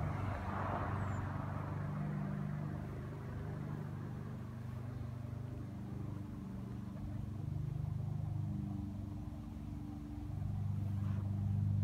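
Low hum of vehicle engines, swelling and fading a few times.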